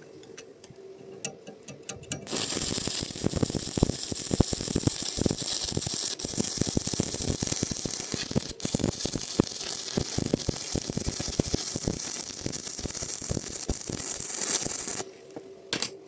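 Electric arc welding on iron rod: a loud, steady frying hiss full of irregular crackles. It starts about two seconds in and cuts off abruptly a second before the end, when the arc is broken.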